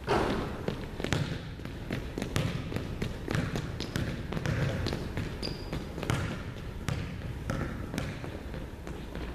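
Basketball sneakers stepping and tapping quickly on a hardwood gym floor during agility-ladder footwork: a run of irregular quick footfalls, with one brief high squeak about halfway through.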